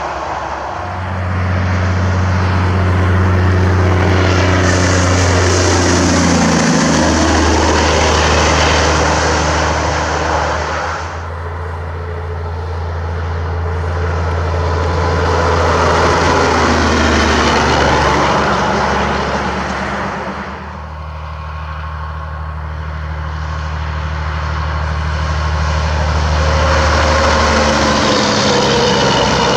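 Semi-trucks passing on a highway one after another, about three pass-bys. Each has a heavy diesel engine drone that swells as the truck approaches, then drops in pitch and fades as it goes by.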